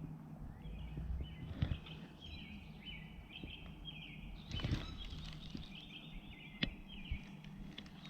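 Birds singing in short repeated phrases, with a few soft knocks and bumps about one and a half, four and a half, and six and a half seconds in.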